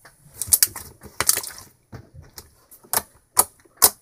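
Glossy, clicky slime being pressed, poked and squished by hand, making irregular sharp clicks and wet pops, several to the second.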